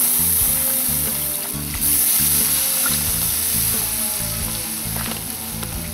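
Beef broth poured from a carton into a hot cast iron Dutch oven of vegetables, sizzling loudly as it hits the hot iron, with a brief dip about two seconds in. Background music plays underneath.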